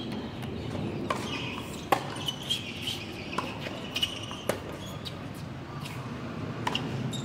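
Tennis rally on a hard court: rackets striking the ball and the ball bouncing, heard as a string of sharp pops spread over several seconds. The loudest pop comes about two seconds in.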